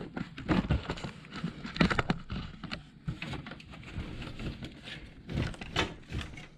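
Irregular scraping, rustling and light knocks of wires and plastic connectors being pulled through the sheet-metal side wall of an HP LaserJet 4250 laser printer.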